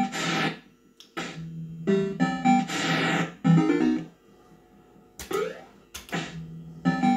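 Bell-Fruit Cash Explosion fruit machine playing its electronic sound effects: a string of short synthesised jingles and beeps, with a quick run of stepped notes a few seconds in, then a rising glide and a couple of sharp clicks.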